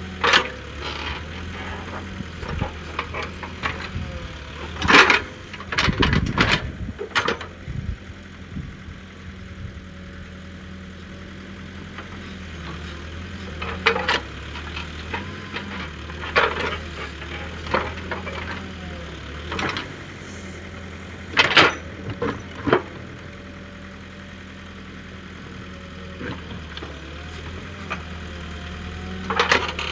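JCB earthmover's diesel engine running steadily at a low hum, with sharp knocks every few seconds, loudest about a fifth of the way in and again about two thirds of the way in.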